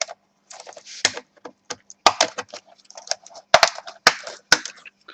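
Plastic clips clicking and crackling as the keyboard cover strip of a Toshiba Satellite C660D laptop is pried off: an irregular run of sharp clicks and short crackles.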